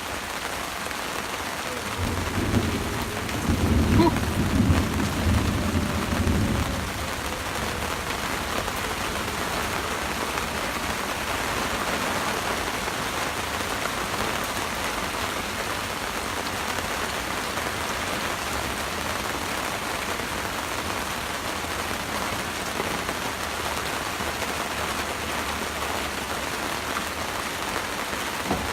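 Steady rain, with a low rumble of thunder starting about two seconds in and lasting several seconds.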